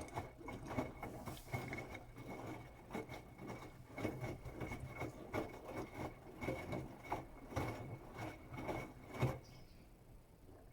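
Bosch Serie 8 WAW32590 washing machine drum turning during the wash, wet laundry tumbling and slapping with irregular thumps and splashes over a faint motor whine and hum. The drum stops near the end.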